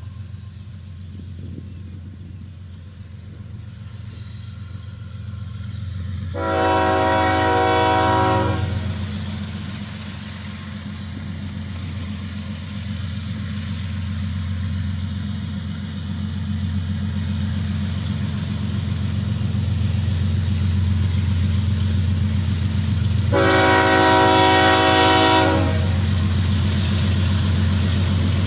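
Approaching CSX freight train led by a GE ES40DC diesel-electric locomotive, sounding two long horn blasts for the grade crossing, the first about six seconds in and the second a few seconds before the end. Under the horn, the locomotives' engine rumble grows steadily louder as the train draws near.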